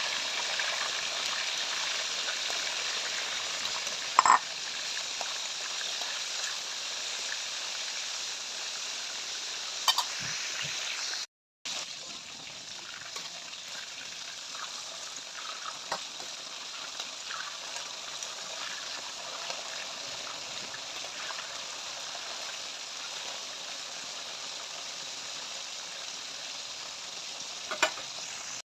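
Chicken pieces frying in hot oil, a steady sizzle with a few sharp clinks of a utensil against the pan. The sizzle drops slightly in level after a short break about eleven seconds in.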